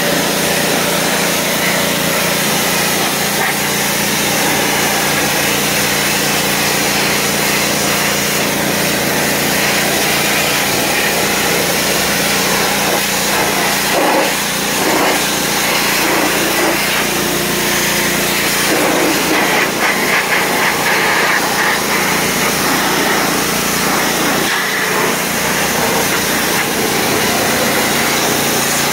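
Engine-driven pressure washer running steadily: the small engine's hum under the hiss of the high-pressure jet striking a semi truck's tanks and tyre.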